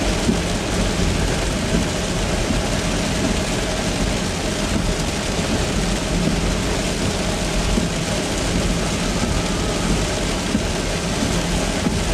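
Heavy rain pelting the car's windshield and body, heard inside the cabin as a dense, steady hiss over the low rumble of the car driving on the wet road.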